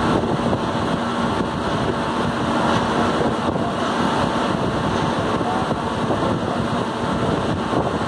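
Steady industrial machinery noise: an even rumble and hiss with faint steady hums running through it.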